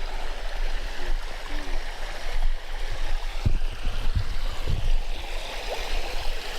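Shallow creek water running and gurgling over shale rocks, a steady rush, with irregular low thumps and rumble mixed in.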